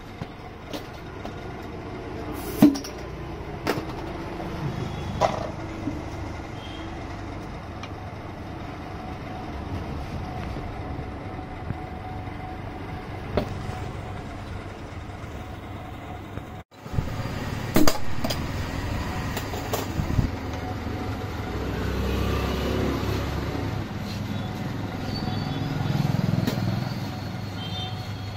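Short clinks and knocks of a glass soda bottle being handled, over a steady background hum of passing street traffic.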